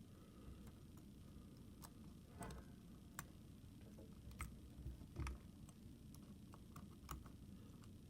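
Faint, irregular small clicks of a flag dimple pick working the pin stacks of a Reece 10-pin dimple padlock under light tension, as the pins are felt for a binder and set.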